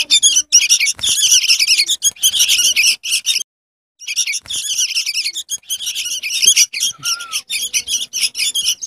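Young bulbuls calling in a dense, rapid stream of short, high, harsh chirps. The sound cuts out completely for about half a second around three and a half seconds in.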